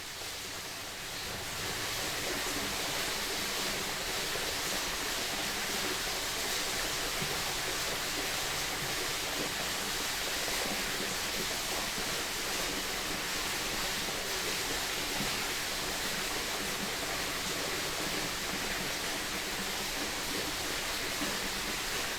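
Jungle creek flowing over small cascades: a steady, even rush of water that swells a little in the first couple of seconds, then holds.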